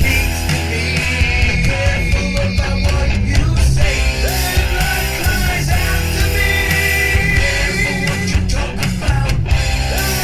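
Loud rock music with guitar, running steadily throughout.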